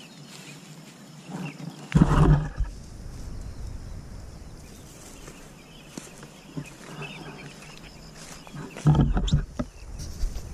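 Two loud bursts of low rumbling noise on the camera microphone, one about two seconds in and one near the end, typical of wind buffeting or the camera being jostled. Faint scattered rustling in between.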